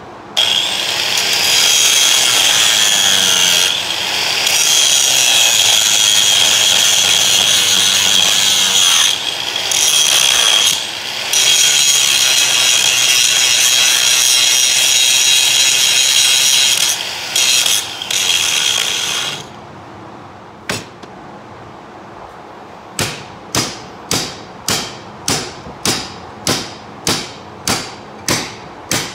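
Angle grinder cutting into a rusty steel floor chain, running loud and steady with a few short breaks before it stops about two-thirds of the way through. After a pause, sharp metal-on-metal hammer blows on the chain, about two a second.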